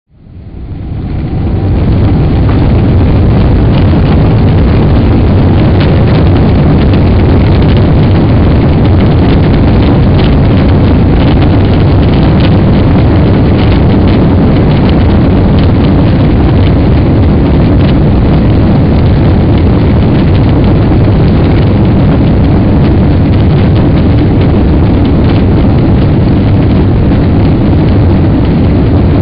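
Boeing 777 jet engines and rushing air at takeoff, heard from inside the cabin as a loud, steady roar that fades in over the first two seconds.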